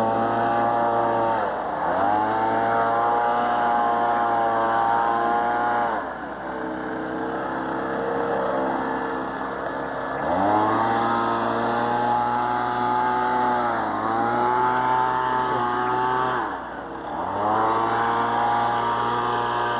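An engine revving up to a steady pitch, holding it for a few seconds, then dropping back, about four times over. It sits at a lower, idle-like pitch for a few seconds in the middle.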